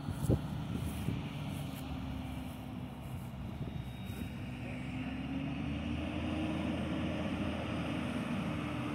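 An engine drones steadily, its low hum rising slightly in pitch and growing a little louder over the last few seconds. A few light clicks are heard near the start.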